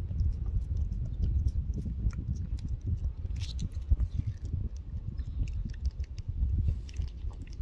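A tortoiseshell cat licking treat paste from a squeeze tube: many quick, small wet clicks of its tongue and mouth, over a steady low rumble.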